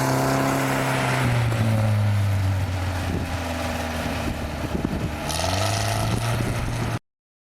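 An off-road 4x4's engine running hard, its note dropping about a second in and climbing again a little after five seconds as the driver works the throttle. A hiss joins the engine near five seconds, and the sound cuts off suddenly near the end.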